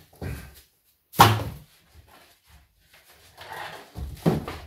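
Laminate flooring planks knocking and slapping against each other and the wall as a leaning stack is shifted and slips. There is a loud sharp slap about a second in, and another knock near the end.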